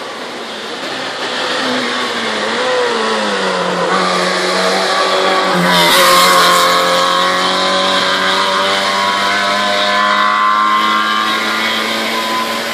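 Small hatchback hillclimb race car driven flat out up a mountain road, its engine revving higher as it approaches. It passes close by about six seconds in, the loudest moment, and carries on climbing away at high revs.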